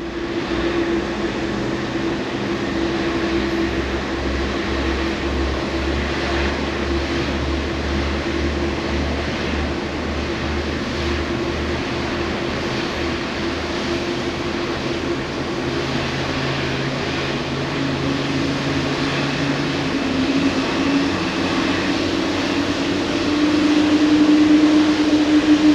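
Boeing 787 turbofan engine just after light-off during its start, running up with a steady hum and a held whine. About twenty seconds in, a second, lower whine appears and rises in pitch, and the sound grows louder near the end as the engine accelerates toward idle.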